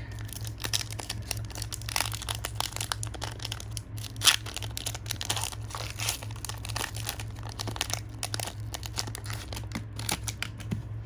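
Foil booster-pack wrapper of Pokémon trading cards being crinkled and torn open, a dense run of crackles with one louder crackle about four seconds in.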